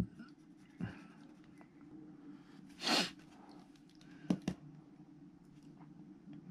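A person's short, sharp breath through the nose about three seconds in, over a faint steady hum, with a few light taps and clicks around it.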